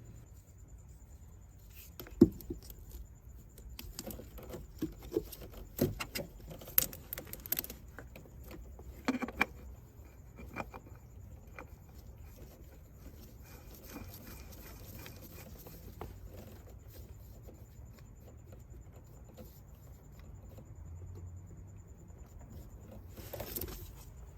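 Scattered clicks and light metallic clinks of tools and parts being handled, thickest in the first ten seconds with a short cluster again near the end.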